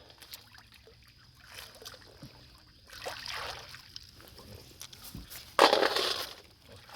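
Shallow river water sloshing and splashing, with a louder splash lasting under a second about five and a half seconds in.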